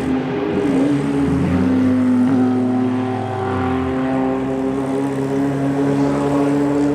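Several historic racing car engines running hard at once, a steady, overlapping drone held at near-constant pitch with small shifts as the cars change speed; one lower engine note drops away about four seconds in.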